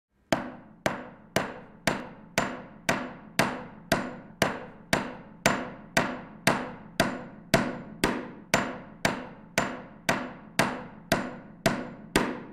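Hammer striking at a steady, even pace, about two blows a second, each blow ringing briefly.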